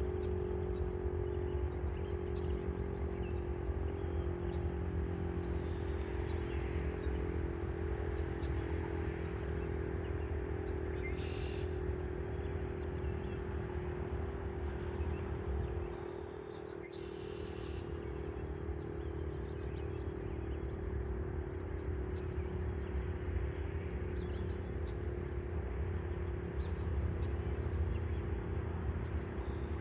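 Federal Signal STH-10 fire siren sounding a steady held tone, dipping briefly in level about sixteen seconds in, over a low steady rumble.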